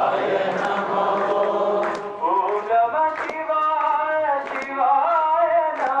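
Group singing a devotional bhajan to Shiva as a chant, in long held melodic lines, with a new phrase beginning about two seconds in. Sharp percussion strokes sound at intervals through the singing.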